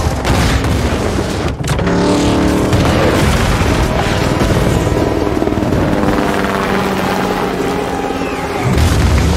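Mixed action-film soundtrack: explosions and a racing car engine over dramatic score music, with a heavy low boom near the end.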